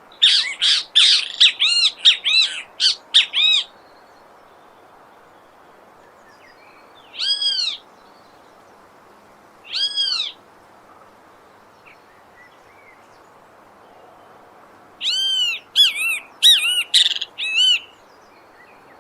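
A bem-te-vi tyrant flycatcher calling: a rapid series of sharp, arched high notes in the first few seconds, two single notes around 7 and 10 seconds in, then another quick series near the end, over a faint steady background hiss.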